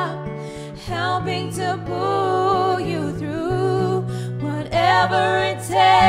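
Female vocal trio singing in harmony with vibrato over long held low notes, with a short lull about half a second in.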